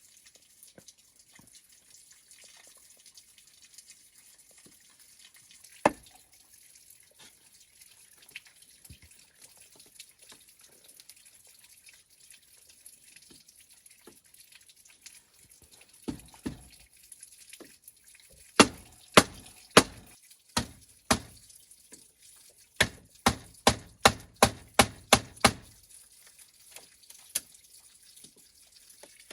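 A series of sharp taps or knocks over a faint steady hiss. A single tap comes first, then a few taps spaced about half a second to a second apart, then a quick run of about a dozen at roughly three a second.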